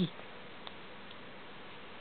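Quiet room tone: a steady low hiss, broken once by a faint tick.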